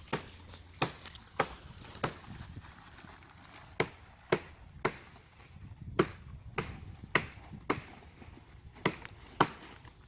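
A series of about fourteen sharp knocks or strikes, coming in uneven runs of roughly two a second, each short and cutting off quickly.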